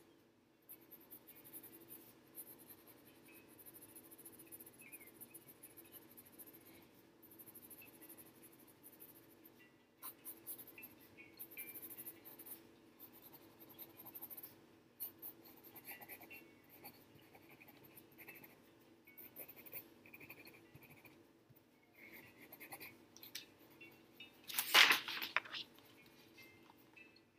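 Pencil scratching on sketchbook paper in short strokes that come and go as the fur is shaded, over a faint steady hum. Near the end there is one brief, much louder scuff.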